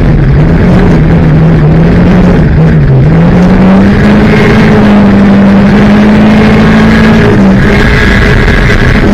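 Banger race car engine heard from inside the stripped cabin while racing, very loud. Its pitch dips near the start and about three seconds in, holds higher for a few seconds, then drops again near the end, as the driver eases off and gets back on the throttle around the oval.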